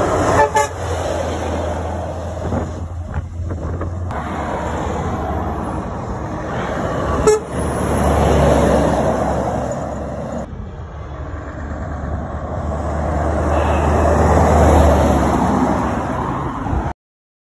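Articulated lorries driving past with their diesel engines running, swelling as each one goes by. A short truck-horn toot sounds at the start and a brief sharp blip about seven seconds in, and the sound cuts off just before the end.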